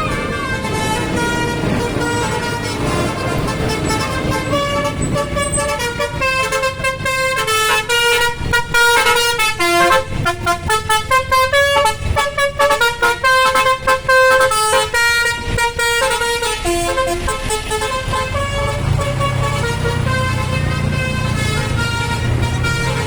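Bus's multi-tone Basuri telolet horn playing a quick tune of stepped notes for about ten seconds, over the rumble of the bus engine, which grows louder near the end.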